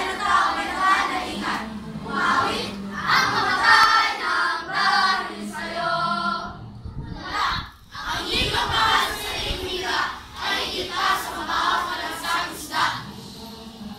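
A group of schoolchildren's voices together in unison, delivering a piece phrase by phrase, with a short break about halfway through.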